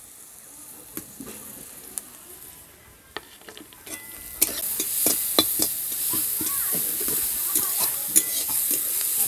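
Grated carrot and chopped vegetables frying in oil in a metal kadai, stirred with a metal spatula that scrapes and clicks against the pan. The sizzle and scraping grow louder about four seconds in.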